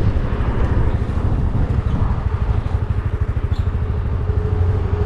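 RKS Newlight 125 Pro scooter's engine running while riding, with a steady low rumble and wind buffeting the microphone. A steady mid-pitched tone joins near the end.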